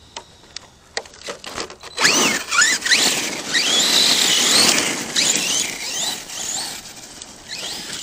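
ARRMA Kraton 6S RC truck's brushless electric motor and drivetrain whining under throttle, the pitch rising and falling repeatedly, with the tyres churning the gravel and dirt. It starts about two seconds in after a few light clicks and eases off somewhat near the end.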